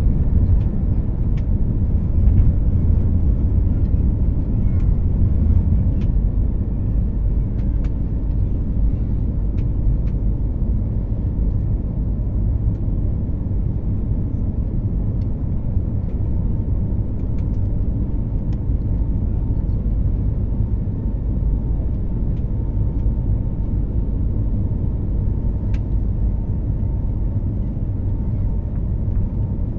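Cabin noise of an Airbus A320-family airliner climbing out just after liftoff: a steady deep rumble of the jet engines at takeoff thrust and rushing air, easing slightly after the first few seconds. A faint steady tone joins about halfway through, and there are a few light clicks.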